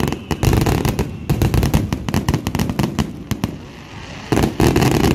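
Fireworks display: aerial shells bursting in a dense, rapid volley of sharp bangs. The volley thins for a moment about three and a half seconds in, then a second loud volley of bangs follows near the end.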